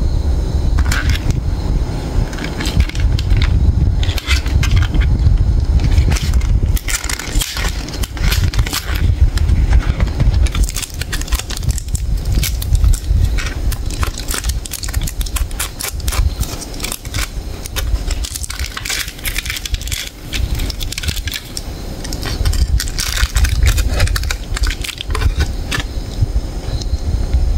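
Packaging of a large KitKat chocolate-coated wafer bar being torn open and unwrapped: the paper wrapper ripping and the foil crinkling as it is peeled back, in a dense, irregular run of crackles and rustles.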